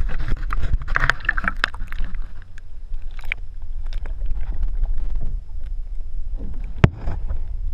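Underwater noise picked up by a GoPro in its waterproof housing: a steady low rumble with scattered clicks and knocks, and one sharp knock near the end.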